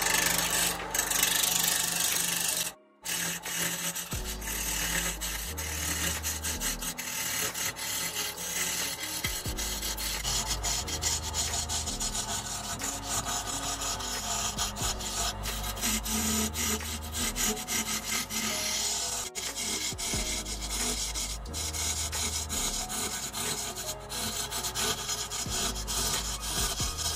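Wood lathe turning: a gouge cutting into a spinning mulberry blank, a continuous rough scraping with fine crackle as shavings come off, broken by a brief gap about three seconds in.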